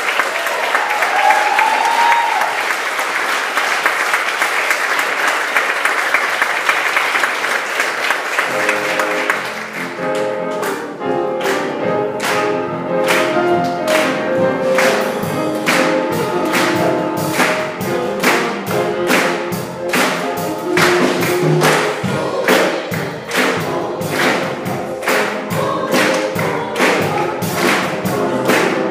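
Audience applauding. About nine seconds in, a gospel choir starts a song over a steady beat, accompanied by piano and drums.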